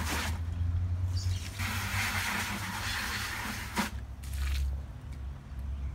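Water from a garden-hose spray gun hissing into a plastic bucket, then splashing out as the bucket is tipped, with a single knock partway through. Wind rumbles on the microphone.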